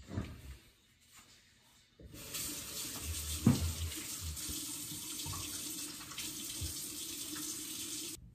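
Kitchen tap turned on about two seconds in, water running steadily into the sink, then shut off abruptly near the end. There is a single knock shortly after the water starts.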